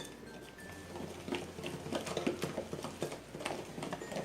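Thick cake batter being stirred in a bowl: a run of irregular soft knocks and wet scrapes of the utensil against the bowl, with a sharp click right at the start.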